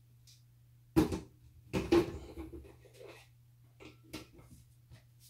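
Sharp knocks and clatter of hard objects being handled in a kitchen: one loud knock about a second in, a rattling clatter around two seconds, and a few lighter clicks near four seconds, over a faint steady low hum.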